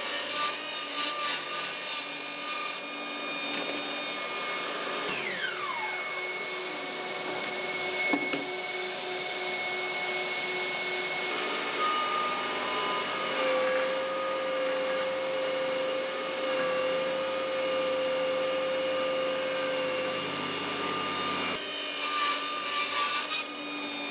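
Small job-site table saw ripping thin strips of ash and walnut, its motor whining steadily, with cutting noise near the start and again near the end and the whine falling in pitch about five seconds in. The saw is working at the limit of its capacity, its motor under strain.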